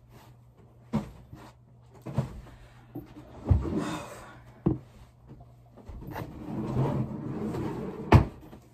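Handling noise: a chair being gripped and moved close to the microphone, with several sharp knocks and thumps and stretches of rustling, the loudest knock near the end.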